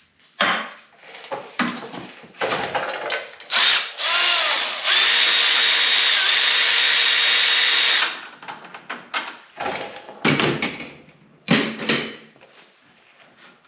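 Tools and parts clanking, then a power drill spins up about four seconds in, runs steadily for about three seconds and stops, driving hardware while a snowmobile ski is mounted. More clanks and knocks follow.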